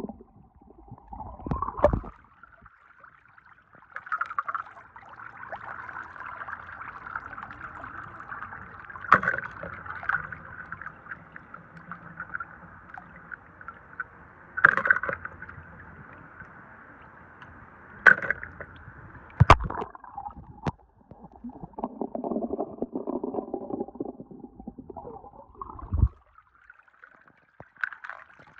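Water sloshing and trickling as wet die-cast toy cars are lifted out of a tub of water by hand, with several sharp clicks of the toys knocking on a hard floor.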